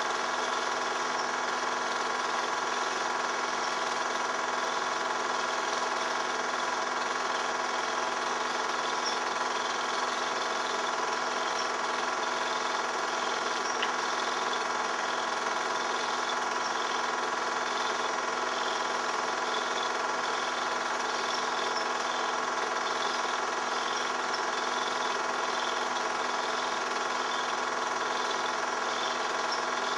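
Film projector running: a steady mechanical whir and clatter from its motor and film transport.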